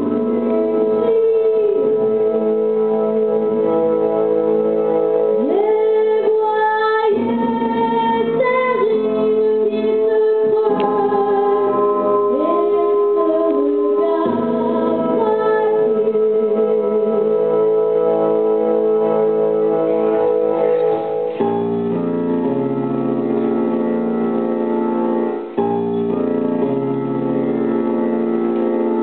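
Stage-musical song: a voice singing over held electronic organ-like keyboard chords. The voice falls away in the second half, and from about 21 s the keyboard plays on alone with a new chord pattern.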